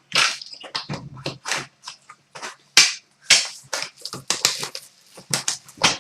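Plastic card-pack wrapping being crinkled and torn open: a quick, irregular series of sharp crackles and rips.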